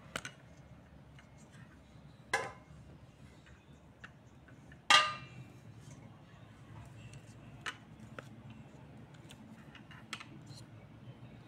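Metal frame pieces of a flat-pack shoe bench knocking and clinking against each other and the tiled floor as they are handled. A few scattered knocks and small ticks, the loudest a ringing metallic clang about five seconds in.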